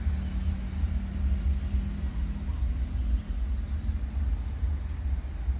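Container freight train's wagons rolling away over the track, a steady low rumble. A faint hum over it fades out about three seconds in.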